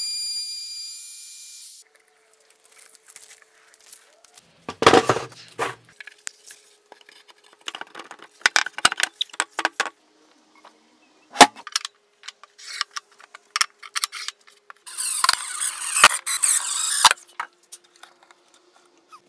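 Cordless trim router with a flush-trim bit trimming overhanging brass veneer, a high whine that stops about two seconds in. Then knocks, clicks and scrapes from the wooden bench being handled, with a longer burst of scraping noise near the end.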